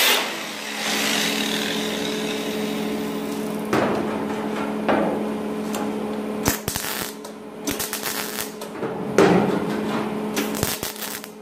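Scattered knocks and taps of tools on sheet metal, over a steady mechanical hum.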